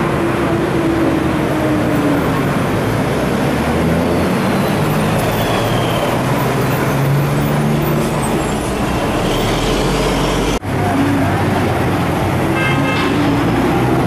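Busy street traffic: engines of passing cars, tuk-tuks and motorbikes running, the sound cutting out for an instant about three-quarters of the way through.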